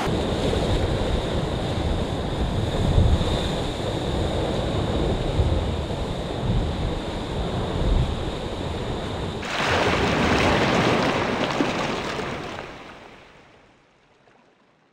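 Wind and rushing water from a Volvo Ocean 65 racing yacht sailing at speed through waves: a steady low rumble with a faint high whine, then about nine seconds in a louder hiss of spray and wave wash that fades out near the end.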